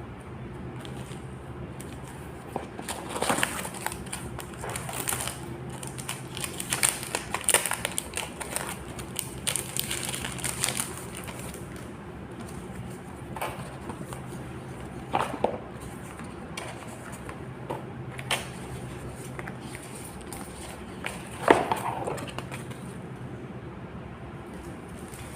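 Packaging being handled and unwrapped by hand: crinkling rustles and small clicks, busiest in the first half, then a few separate sharper clicks, the loudest about two-thirds of the way through, over a low steady hum.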